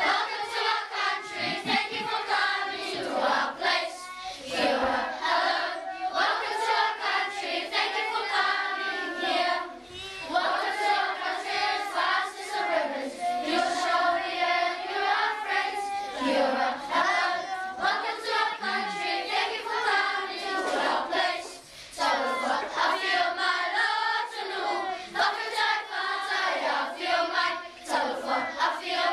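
A large choir of young schoolchildren singing together in phrases, with short pauses between them about ten and twenty-two seconds in.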